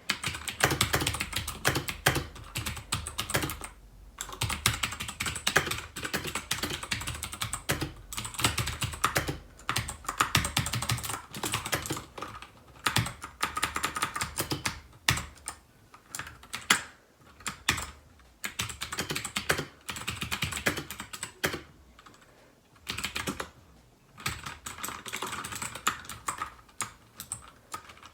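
Typing on a Royal Kludge RK61 mechanical keyboard with blue switches: fast, clicky keystrokes in irregular runs with short pauses.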